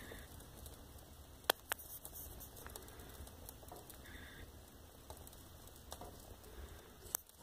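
Wood fire crackling, with a disposable diaper burning on the logs: faint crackles and a few sharp pops, the loudest two close together about a second and a half in and another near the end, over a low steady rumble.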